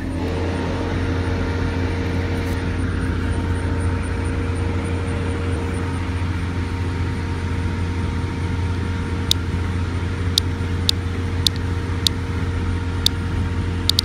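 A steady low motor hum with a few constant pitched tones, like a vehicle engine running. About nine seconds in, half a dozen short, sharp high clicks begin.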